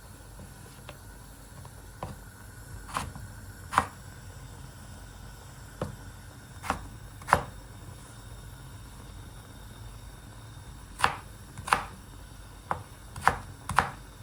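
Kitchen knife chopping potatoes: about a dozen sharp chops, irregularly spaced, in small clusters with pauses between them.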